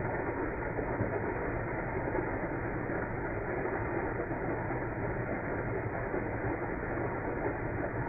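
Fountain water splashing into its basin, heard slowed down with the slow-motion footage so that it comes out as a low, muffled, steady rush.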